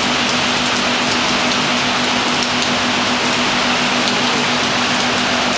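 Heavy rainstorm with some wind: a dense, steady hiss of pouring rain, with a faint steady low hum underneath.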